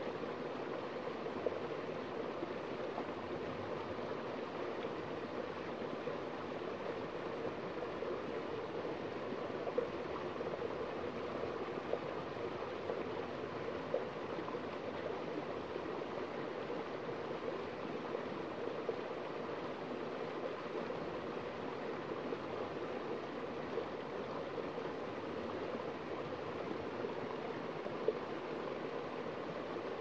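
A small waterfall on a forest brook, pouring over mossy rocks into a shallow pool. The rush and splash of the water is steady, with a few brief, sharper splashes.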